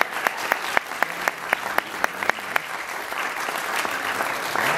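Audience applauding, with one pair of hands clapping close by at about four claps a second for the first couple of seconds. The applause grows fuller and louder near the end.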